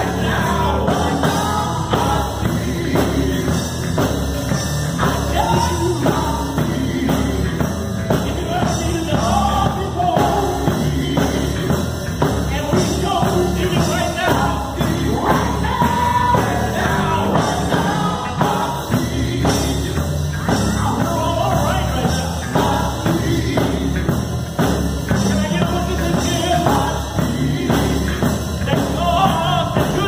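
Male gospel vocal group singing lead and harmony into microphones, backed by a live band with electric guitar and drums.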